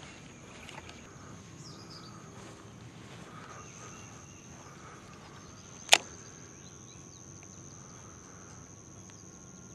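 Quiet lakeshore ambience with a steady high-pitched insect drone that gets a little stronger about three seconds in, and a single sharp click about six seconds in.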